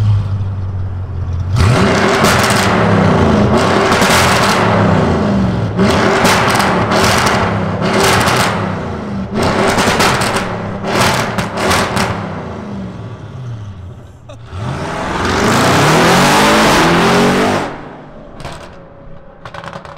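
Straight-piped Audi RS6 Performance twin-turbo 4.0 V8 revved hard again and again, each rev falling away into loud crackles and bangs. Its tune injects fuel a little longer so it bangs longer and harder. The sound echoes in an underpass, and near the end one long rev carries it away before the sound drops off.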